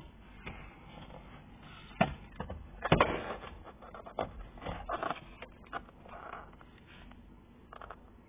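Plastic knocks, clicks and scraping from handling a Peugeot 308 SW's driver airbag module, pulled free of the steering wheel, and its wiring. The loudest knocks come about two and three seconds in, with smaller clicks and rustling after.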